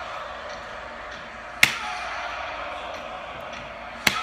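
Two single hand claps, sharp and loud, one about a second and a half in and one near the end.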